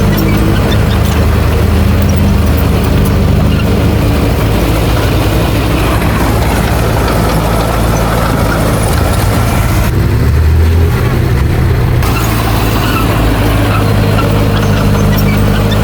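Heavy diesel engine of earthmoving machinery running steadily, with its sound shifting briefly about ten seconds in.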